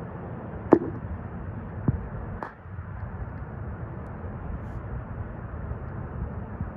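Handling noise from a phone camera held against binoculars: three sharp knocks in the first few seconds, the first the loudest, over a steady low rumble and hiss.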